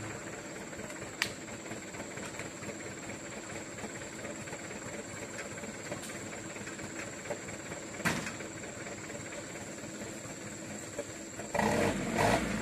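Diesel truck engines idling steadily, with two sharp knocks about a second and eight seconds in; the engine noise grows louder near the end.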